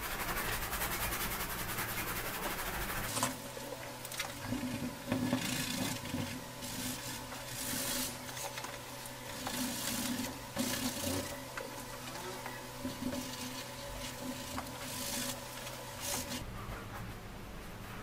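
Stiff paintbrush scrubbing oil paint onto a painting surface in repeated, irregular strokes, a dry rasping hiss with each stroke. A steady low hum runs underneath from about three seconds in until shortly before the end.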